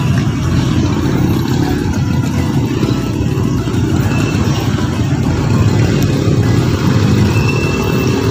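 Steady low rumble of outdoor street noise.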